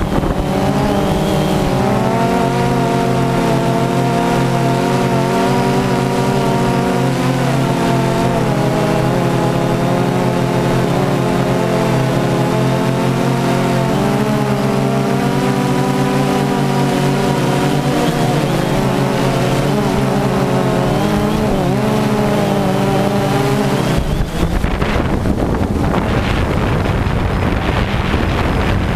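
DJI Phantom 2 quadcopter's motors and propellers whining, heard very close from the drone's own camera, the pitch wavering slightly as it holds and manoeuvres. About 24 seconds in, the steady whine breaks into a rougher rushing sound.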